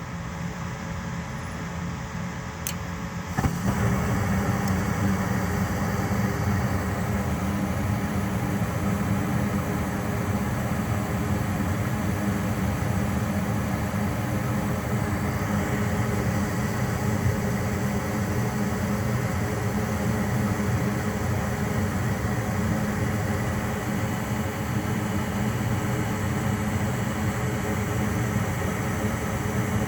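Goodman furnace's blower motor kicking on about three seconds in, just after a sharp click, then running steadily with a low hum and rushing air; before it starts a quieter fan is already running.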